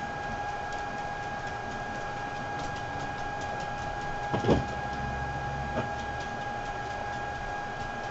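A steady high-pitched electrical-sounding whine over faint room hiss, with a few faint ticks and one short, louder sound about four and a half seconds in.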